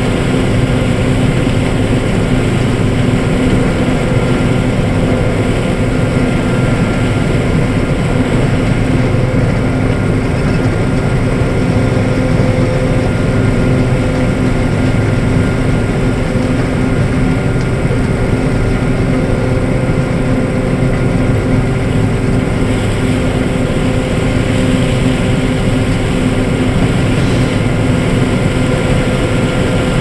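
Combine harvester running steadily while harvesting standing corn with its corn head, heard from inside the cab. The engine and threshing machinery make an even, unbroken hum with a few constant tones.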